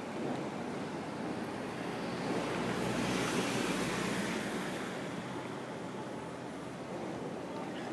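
Steady outdoor rushing noise, largely wind on a phone microphone, swelling for a few seconds in the middle. No clear rhythmic clanking stands out.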